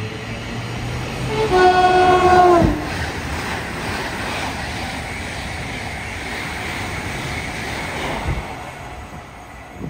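A train sounds its two-tone horn: a brief higher note, then a longer lower note that sags in pitch as it cuts off. The rush of the train running past follows and fades near the end.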